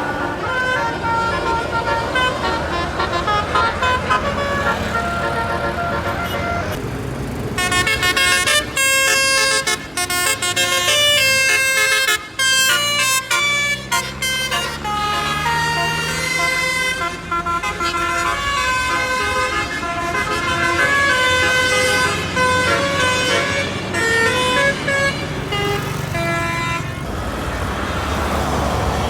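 Basuri telolet horn, the multi-tone bus horn, playing a quick melody of short stepped notes that changes pitch constantly and grows busier and brighter about seven seconds in, with the bus engine running underneath.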